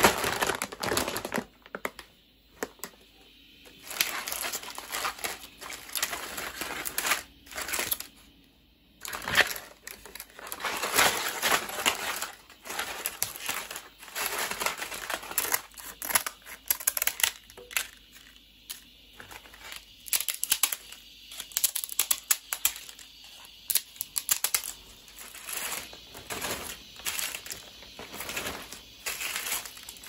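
Dried kelp (dasima) being snipped with scissors and broken by hand: crisp crackling and crunching in irregular bursts with short pauses, along with the rustle of dry seaweed pieces on cloth.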